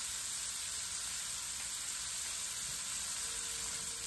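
Chicken thighs searing in hot oil in a deep pan, a steady high sizzle as the second side browns.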